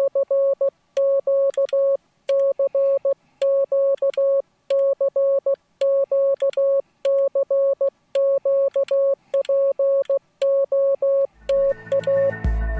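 Morse code sidetone from a Yaesu FT-891 transceiver: a steady mid-pitched beep keyed in short repeating groups, about one a second. Each group fits the letter C (dah-dit-dah-dit) sent over and over with an iambic paddle in squeeze keying. Electronic music with a deep bass comes in near the end.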